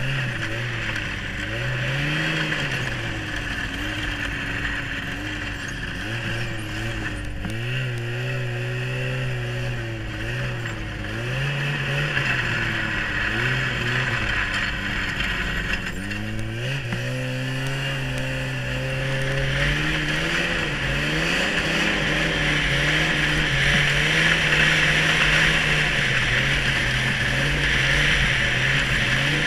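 1996 Yamaha Phazer snowmobile's two-stroke engine running under way, its pitch rising and falling with the throttle through the first half, then holding higher and steadier and growing louder toward the end, with a steady hiss over it.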